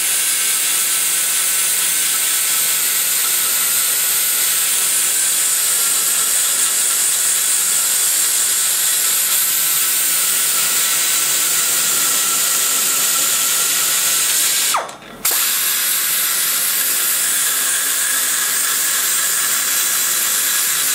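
Die grinder with a carbide cutter running steadily at high speed, cutting metal inside a big-block Chevy cylinder head's exhaust port to grind out the hump in the port wall. About three-quarters of the way through it briefly stops, with a short falling whine, then runs again.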